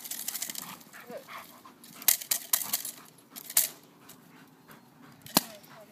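Dog panting and scuffling while gripping a helper's bite sleeve during protection training, with several sharp clicks and rattles scattered through, the loudest about five seconds in.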